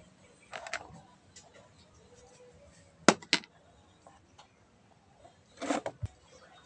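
A metal spoon scraping seeds out of a halved ripe papaya. About three seconds in come two sharp taps as the spoon knocks seeds off onto a plastic dish, and near the end there is another scrape and a soft thud as the spoon digs back into the fruit.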